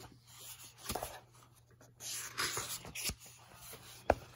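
Paper pages of a hardback book being turned and handled: a few soft papery rustles, then a sharp tap about four seconds in.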